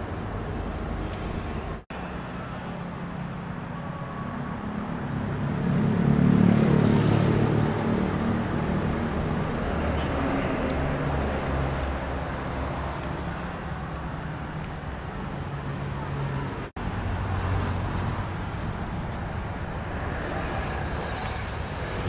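Motor vehicle engine running with road traffic noise, swelling louder for a couple of seconds about six seconds in. The sound drops out for an instant twice.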